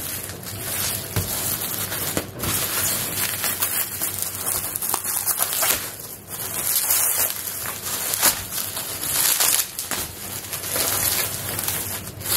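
Clear plastic bubble-wrap packaging being handled, pulled and torn open, crinkling and crackling continuously with many small sharp clicks.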